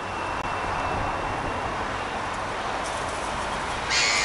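Steady outdoor background rumble, with a short, loud, high-pitched call near the end.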